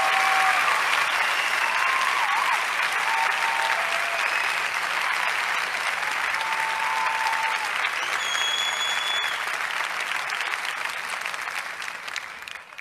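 Audience applauding, with a few scattered cheering voices and a brief whistle about two-thirds of the way through. The applause dies away near the end.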